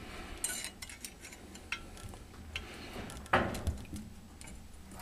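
Light metal clicks and scrapes of pliers, a small coil snubber spring and a steel retainer plate against the side frame of a 1/8-scale freight car truck as the spring is pushed into its pocket, with a louder scrape a little past halfway.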